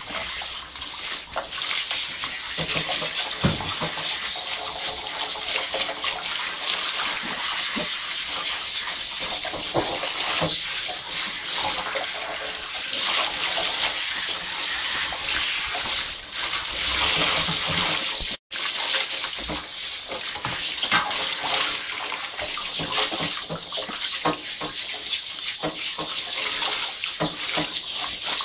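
Water from a hand-held shower head running steadily onto a wet Yorkshire terrier puppy and splashing into a bathtub, with a very brief break about two-thirds of the way in.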